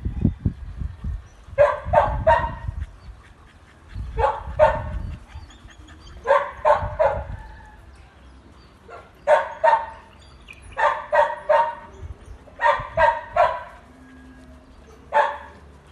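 A dog barking in quick, high-pitched bursts of two to four barks, about seven bursts spaced a second or two apart, as the dogs play together.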